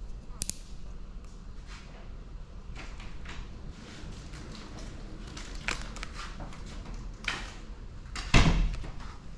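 Scattered light scraping and rustling as a small blade trims the edge of clear paint protection film, with one loud low thump a little over eight seconds in.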